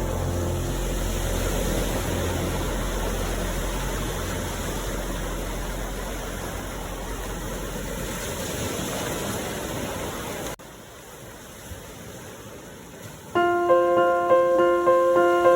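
Sea waves washing steadily under soft held music notes that fade away. About ten seconds in, the sound drops suddenly to a quieter wash of surf. A few seconds later a gentle piano melody starts.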